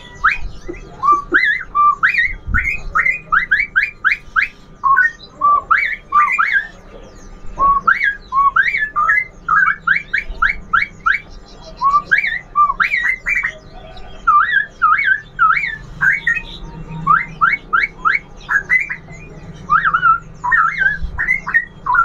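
Caged straw-headed bulbul (cucak rowo) singing loud whistled phrases, each a quick run of rising notes, with short pauses between them.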